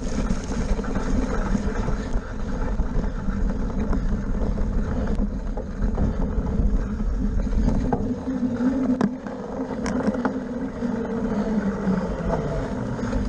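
Wind buffeting an action camera's microphone on a bicycle ridden at speed, with steady tyre rumble over grass and mud and a few sharp clicks and rattles from the bike.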